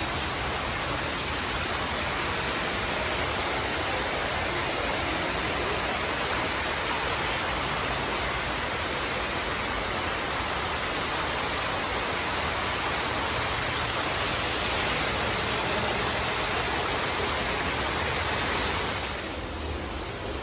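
Steady rush of falling and running water from an artificial stream and waterfall, dropping in level shortly before the end.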